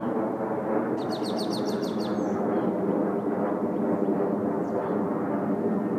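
A small bird's quick high trill, about a second in and lasting about a second, over a loud, dense, steady din that starts suddenly at the very beginning.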